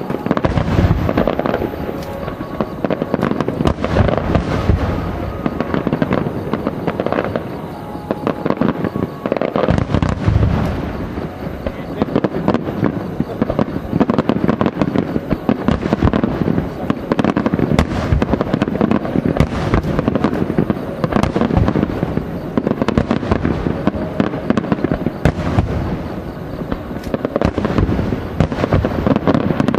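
Aerial fireworks shells bursting in a dense, continuous barrage of booms and crackles that swells and eases every few seconds.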